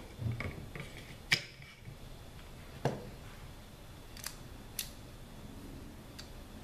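Metal clicks and clacks of AR-15-type rifle parts, the charging handle and bolt carrier group, being handled and fitted into the upper receiver. There is a sharp click about a second in, a duller knock near three seconds, and a few lighter clicks later.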